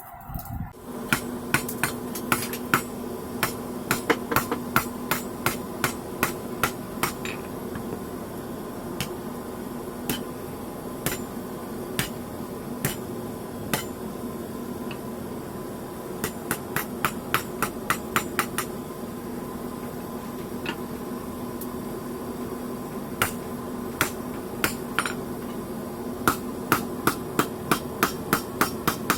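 Hand hammer blows on hot steel rebar at an anvil, struck in runs of quick, ringing strikes with short pauses between, as the bar is forged into a crowbar. A steady hum runs underneath.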